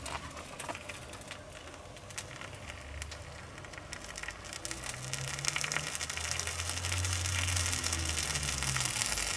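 Bacon-and-cheese sandwich sizzling and crackling between the hot plates of a Tefal OptiGrill Elite contact grill, the sizzle growing louder from about halfway.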